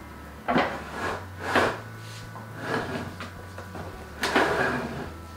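Rustling, scraping handling noises from gloved hands working inside a plastic pet incubator, four short scrapes with the loudest about four seconds in, over a steady low hum.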